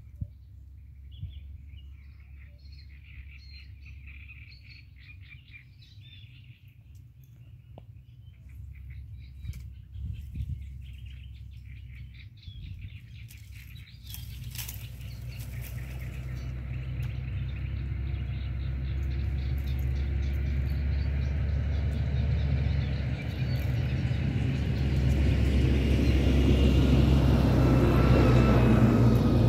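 Small birds chirping over a low background rumble, then a motor's rumble that swells steadily louder from about halfway in as it approaches, loudest near the end.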